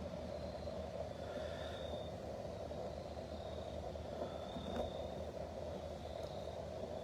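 Steady outdoor background noise: a constant low hum and hiss, with short high-pitched chirps repeating about once a second.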